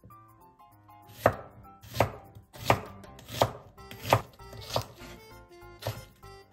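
A chef's knife slicing an onion into thick slices on a wooden cutting board: seven crisp cuts, each ending in a knock of the blade on the board, about one every 0.7 s, the last after a slightly longer gap.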